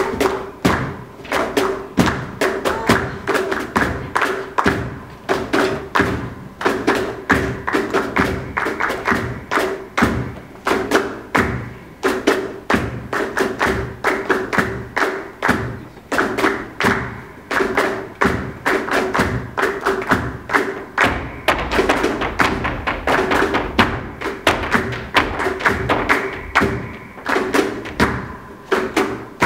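Flamenco footwork (zapateado): rapid heel and toe stamps on a wooden stage, several a second, over flamenco band music.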